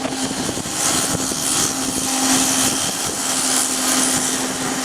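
Steady drone of a research ship's engines and machinery under way at sea: a constant hum beneath an even rushing noise.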